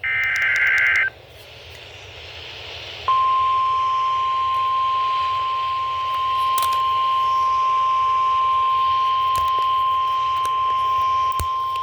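The end of an Emergency Alert System SAME data burst, a shrill warbling of digital tones lasting about a second, then about two seconds of radio hiss. Then the NOAA Weather Radio 1050 Hz warning alarm tone starts suddenly: one loud, steady tone held for about nine seconds, signalling a warning.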